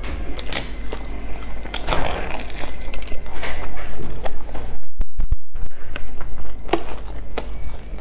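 Close-miked crunching and crackling of a crisp, breadcrumb-coated fried bun being bitten, chewed and torn open by hand: a dense run of short, sharp crackles.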